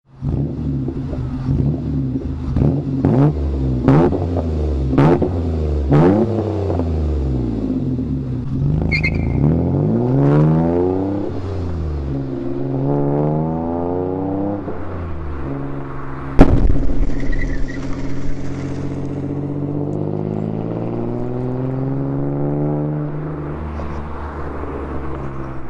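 Mercury Cougar's V6 through a loud 2.5-inch Trubendz cat-back exhaust: several quick revs with sharp cracks, then hard acceleration with the pitch sweeping up through gear changes. There is a single loud bang about sixteen seconds in.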